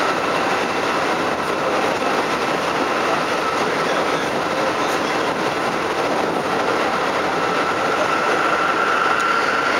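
Steady running noise heard inside a Keikyu New 1000 series stainless-steel motor car at speed: wheels rumbling on the rails with a light clickety-clack. Over it sits a faint steady whine from the Mitsubishi IGBT-VVVF traction equipment, a little louder near the end.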